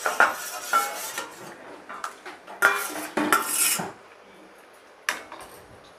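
A metal spoon scraping and clinking against a bowl and the cooking pan as fried prawns are tipped into the curry, in two bursts of clatter, then a pause and one more clink near the end.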